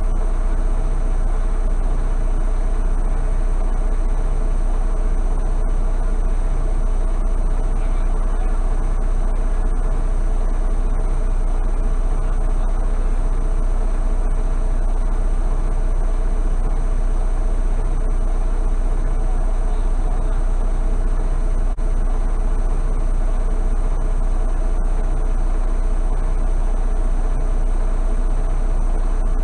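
Semi truck's diesel engine idling steadily, heard from inside the cab.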